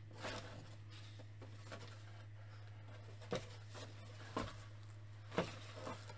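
A few faint clicks and light rustles of a clear plastic blister tray being handled, over a steady low hum.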